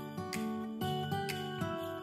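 Background music: plucked guitar notes in an even run.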